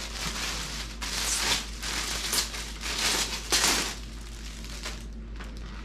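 Clear plastic packaging bag crinkling and rustling as a rhinestone clutch is pulled out of it, in bursts that are loudest about three and a half seconds in, then only faint crackles near the end.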